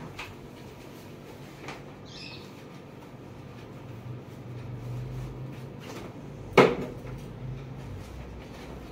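Handling noises as a man gets up from a chair and takes forms out of a paper envelope: a few light knocks and a low rumble, with one sharp knock about six and a half seconds in, the loudest sound.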